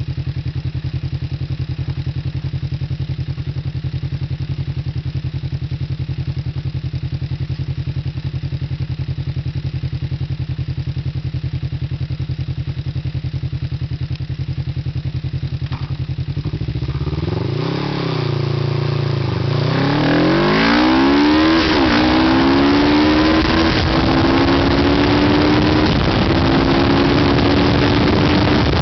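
The buggy's 500cc Kawasaki motorcycle engine idles steadily for about sixteen seconds, then revs up and falls back a couple of times as the buggy pulls away. After a gear change it runs under steady load at road speed, its pitch slowly climbing.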